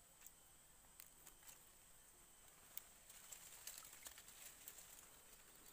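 Near silence: a faint, steady high-pitched insect drone with scattered faint ticks and short chirps.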